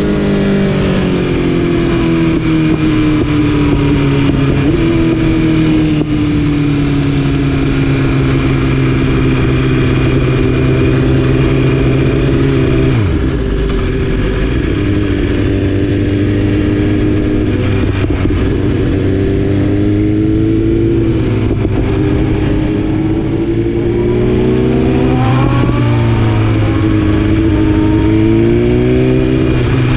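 2020 BMW S1000RR's inline-four running through an Akrapovič exhaust under way, its pitch rising and falling with the throttle. About halfway through the pitch drops sharply, then climbs again in several rising sweeps near the end.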